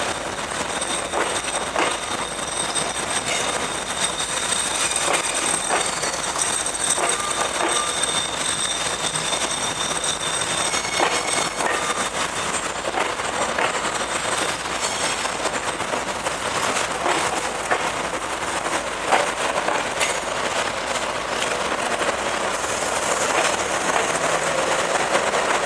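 A train rolling past, its wagons rattling and clicking steadily over the rail joints, with a thin high whine above the noise.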